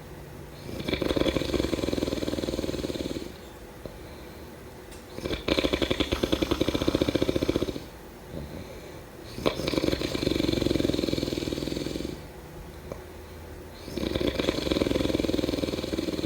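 A person snoring: four long snores about four seconds apart, each lasting two to three seconds. The second snore has a rapid fluttering rattle.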